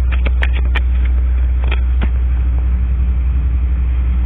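A steady low rumble, with a quick cluster of light clicks in the first second and two more about two seconds in, as tarot cards are handled.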